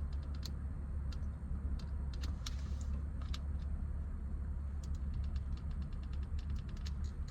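Small sharp clicks and taps of plastic trim tabs and a screwdriver being worked loose, irregular and scattered, over a steady low hum.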